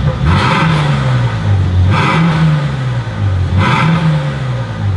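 Mercedes-AMG GLE43 Coupe's twin-turbo V6 revved hard three times through an Armytrix valvetronic exhaust, each blip falling back in pitch toward idle.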